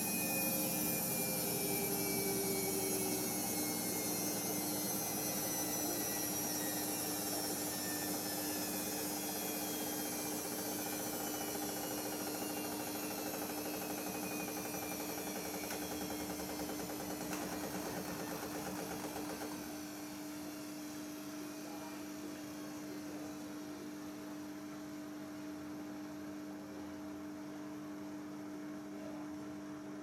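Samsung Eco Bubble WF70F5E2W2X washing machine drum slowing down from its 1200 rpm final spin: a whine falling slowly in pitch over a steady hum, growing quieter. The motor sound cuts off abruptly at the very end.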